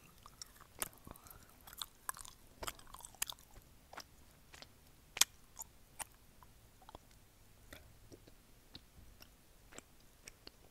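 Close-up chewing of a piece of chocolate, picked up by a wired earphone's inline microphone held at the mouth: irregular mouth clicks and smacks, busiest in the first few seconds, with one sharp louder click about five seconds in.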